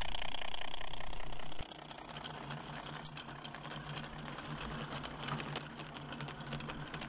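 Small model locomotive's electric motor and gears whining as it passes close by, dropping away sharply about one and a half seconds in. Then a train of small metal ore hopper wagons rolls past, its wheels ticking quickly over the track.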